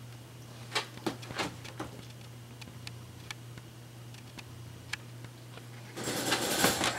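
Scattered sharp clicks and taps as the sedated dog, wearing a plastic cone collar, shifts against its wire crate, over a steady low hum. About six seconds in, a louder breathy rush starts as the dog begins panting.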